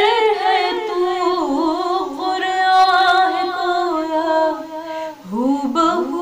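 A woman singing an Urdu naat unaccompanied, drawing out long, wavering held notes. About five seconds in the line breaks and she climbs back up from a lower note.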